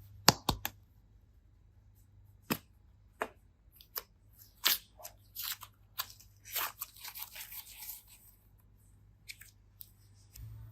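Handling of craft materials: a scattered series of sharp clicks and snips, the loudest right at the start, with a short rustling stretch about seven seconds in.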